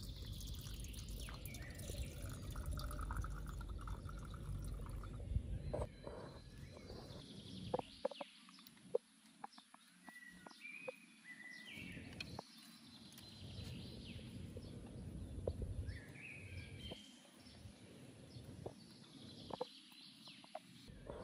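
Faint high animal calls that glide downward every few seconds, mixed with short chirps and scattered light clicks and taps.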